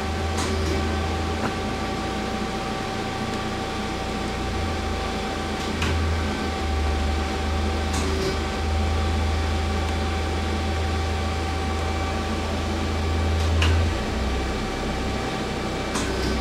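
Turret of a Feeler HT-30Y CNC turning centre indexing from station to station: several sharp clicks a few seconds apart as it unclamps, rotates and locks, over the machine's steady hum.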